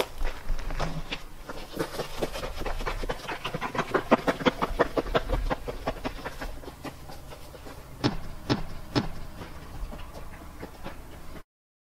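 Footsteps on gravel and pavement, quick and crunching at first, with a few sharper single steps later on; the sound cuts off abruptly near the end.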